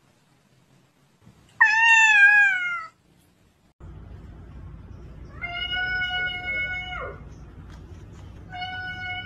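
A domestic cat meows once, a loud call falling in pitch. Then come two long meows held at an even pitch, each dropping at the end, about three seconds apart.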